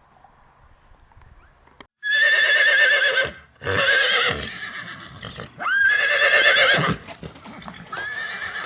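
Horse whinnying: four loud, quavering calls in quick succession, starting about two seconds in after a brief quiet stretch.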